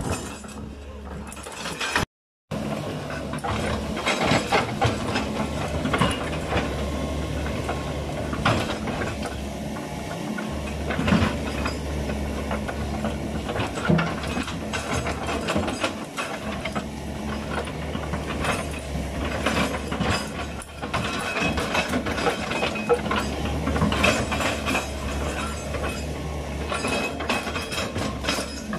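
Sumitomo SH210 excavator's diesel engine running steadily, with repeated metallic clanks and creaks from the working machine.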